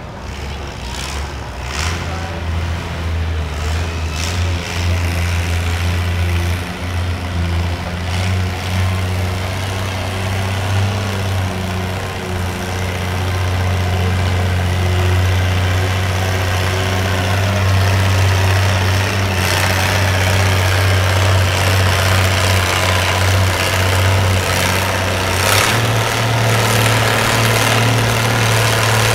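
Antique farm tractor engine running hard under load, pulling a weight-transfer sled: a steady low drone that grows louder over the pull and steps up slightly in pitch near the end.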